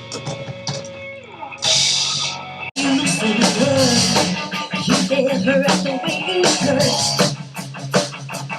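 A live rock band playing, with electric guitar and a drum kit. A held guitar note slides down, a cymbal crashes, and just under three seconds in the sound cuts abruptly into more band music with a melody line and steady drum hits.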